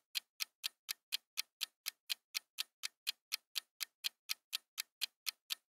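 Countdown timer sound effect ticking evenly, about four sharp ticks a second, while the quiz answer time runs down.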